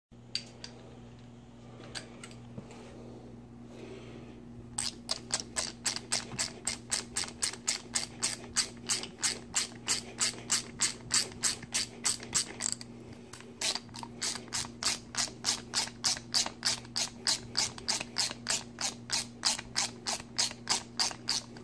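Stanley 89818 CR-V hand ratchet being worked rapidly back and forth, its pawl clicking in quick, regular bursts of about four or five a second. The clicking starts about five seconds in and breaks off briefly around the middle.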